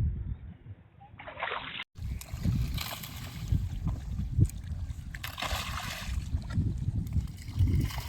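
Water splashing and sloshing in uneven surges, with an abrupt cut to a different recording about two seconds in.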